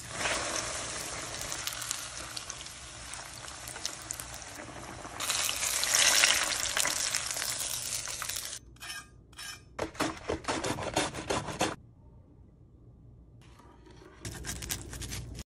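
Panko-breaded food frying in shallow hot oil in a pan: a steady sizzle starts as it goes into the oil and grows louder about five seconds in. It then breaks into scattered crackles and pops, and a short crisp crackle comes near the end.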